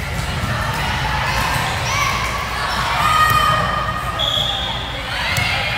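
Large-hall sports court sound: players and spectators calling out over a steady low hum, with a ball bouncing on the court floor and short sneaker squeaks near the end.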